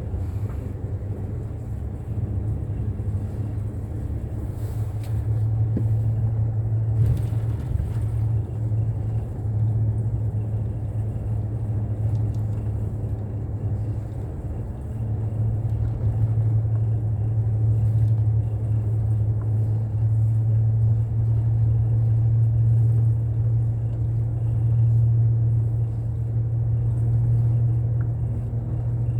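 Steady low engine drone and road rumble of a moving bus, heard from inside the cabin, growing a little louder about six seconds in and again about halfway through.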